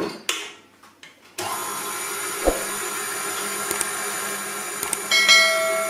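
KitchenAid stand mixer with its wire whisk: a few clicks and clunks as the whisk is fitted, then the motor starts suddenly about a second and a half in and runs steadily, beginning to beat egg whites in a steel bowl. A short ringing ding near the end.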